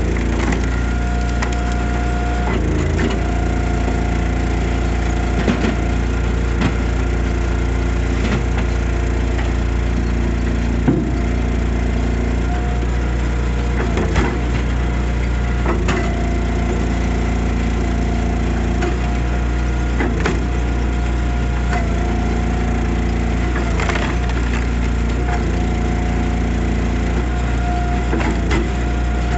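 Engine-driven Easton Made hydraulic log splitter at work: the engine runs steadily, its note shifting now and then as the ram takes load. Sharp cracks and splintering of wood being split sound every few seconds.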